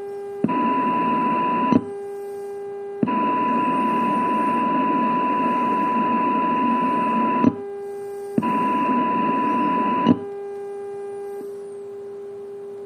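AM audio from a software-defined radio running Linrad, tuned to signal-generator test carriers: a weak carrier's low steady tone, cut off three times by a far stronger carrier's louder, higher tone with hiss, once for several seconds. Each time the strong signal is switched off the weak tone returns at once, the sign of a very fast AGC.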